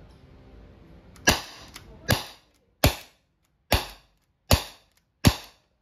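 Umarex TR50 .50-calibre CO2-powered revolver firing six shots in steady succession, starting about a second in. Each is a sharp, sudden pop, a little under a second apart.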